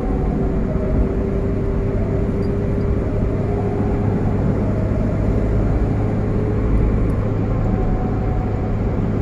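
A car driving on a highway, heard from inside its cabin: a steady low drone of engine and road noise with a faint steady whine over it.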